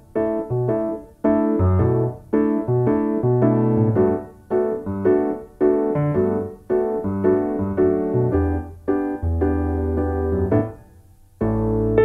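Background piano music: a melody of notes and chords, each struck and fading, with a short pause about eleven seconds in.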